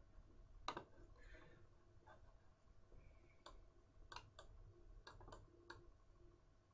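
Faint computer mouse clicks, about eight of them at irregular intervals, over near-silent room tone.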